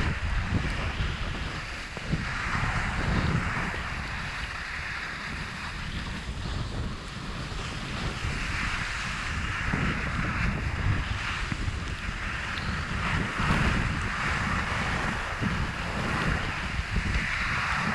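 Wind buffeting the microphone during a fast descent of a snowy ski run, with the hiss of edges scraping over snow swelling with each turn every few seconds.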